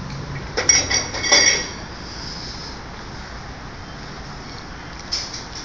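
A few sharp metallic clinks with a short ring, bunched together about a second in, over a steady low background hum.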